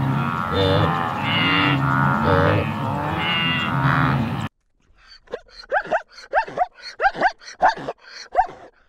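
A flock of sheep bleating, many wavering calls overlapping, cut off abruptly about four and a half seconds in. It is followed by a quick run of about ten short, sharp squeaky calls from another animal.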